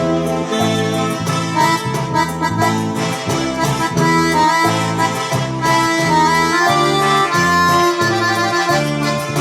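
Electronic keyboard playing a melody in a reedy, accordion-like voice over a steady, rhythmic bass accompaniment.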